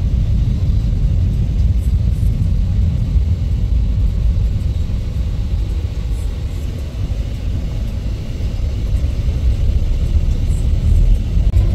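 Steady low rumble of a moving vehicle heard from on board, with no distinct engine note, dipping slightly in level about two-thirds of the way through.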